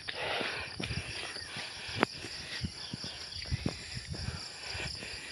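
Insects chirring steadily in the background, with irregular footsteps and light knocks while someone walks.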